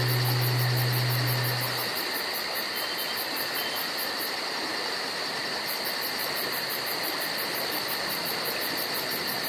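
Steady chorus of forest insects with a fast pulsing high trill and a continuous high buzz. A low sustained note from background music stops about two seconds in.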